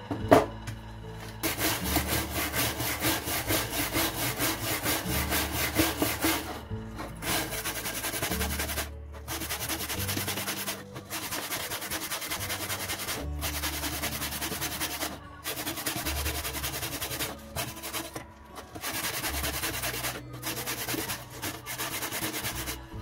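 Hand wire brush scrubbing rust off a rusty metal fan frame ring in rapid back-and-forth strokes, in runs broken by short pauses.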